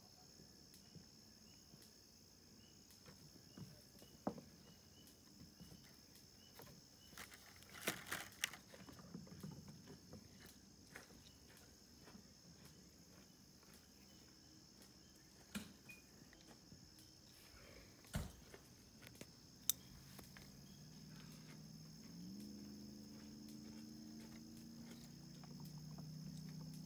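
Quiet outdoor ambience: a steady, high insect chorus with occasional soft taps and rustles. About two-thirds of the way through a faint low hum comes in, steps up in pitch and drops back near the end.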